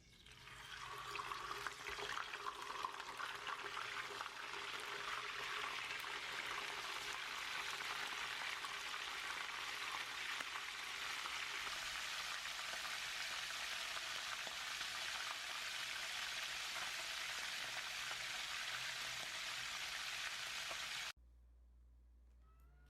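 Food frying in a hot pan: a steady sizzling hiss with fine crackles. It builds over the first few seconds and cuts off abruptly near the end.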